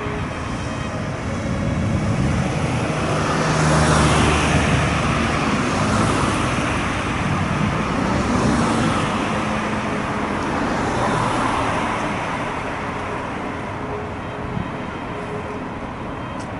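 Road traffic: a steady background of vehicle noise, with two louder vehicles passing about four and eight seconds in.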